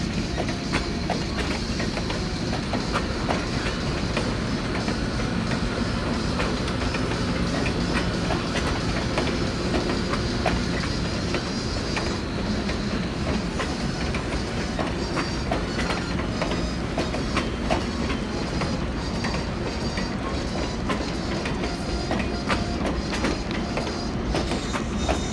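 Train rolling steadily, its wheels clicking over the rail joints in a continuous run, over an even rumble.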